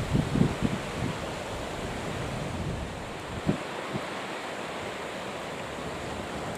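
Steady rush of wind and choppy sea. Short low gusts of wind buffet the microphone near the start and again about three and a half seconds in.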